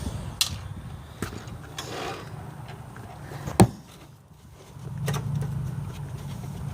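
Scattered clicks and knocks, with one sharp knock about three and a half seconds in, over a low rumble that grows louder in the second half.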